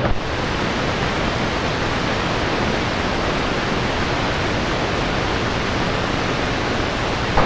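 Steady hiss of band noise and static from a Grundig S350DL shortwave receiver set to AM with the wide filter, tuned to 27.028 MHz in the CB band with no station transmitting. Near the end a short click sounds as another station keys up.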